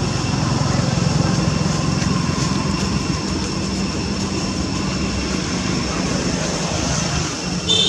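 Steady background of low engine rumble, like distant motor traffic, under a constant high, thin insect drone.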